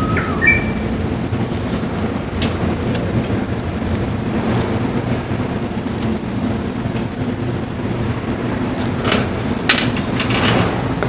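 A Japanese bush warbler's song ends in a rising slur and two short clear whistled notes right at the start, then a steady low rumble of outdoor background noise carries on, broken by a few sharp clicks near the end.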